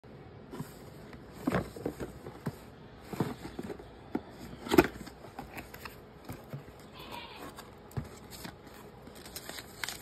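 Hands handling and opening a cardboard box: a series of sharp knocks and taps of cardboard, the loudest near the middle, with a soft rustle of a paper insert later on.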